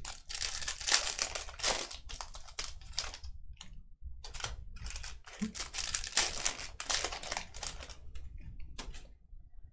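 A quick, uneven run of light clicks and rustles, with two short pauses.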